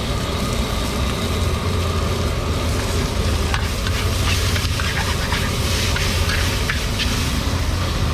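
Noodles sizzling in a large wok as they are stir-fried with a metal spatula, with scattered clicks and scrapes of the spatula against the pan, more of them after a few seconds. A steady low rumble runs underneath.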